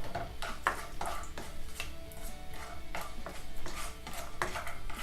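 Metal spoon scraping and knocking against a kadai in quick, irregular strokes, stirring whole spices frying in sesame oil.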